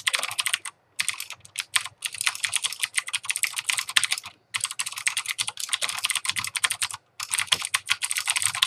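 Fast, continuous typing on a Ducky DK1087 mechanical keyboard with Cherry MX Blue switches: a dense stream of clicky keystrokes, broken by a few brief pauses.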